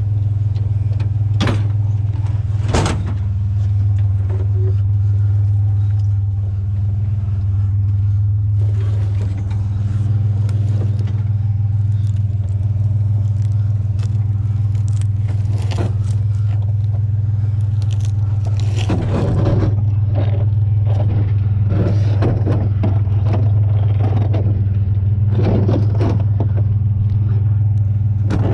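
Truck engine running with a steady low drone, with scattered knocks, scrapes and rattles on top, a couple early on and more in clusters in the second half.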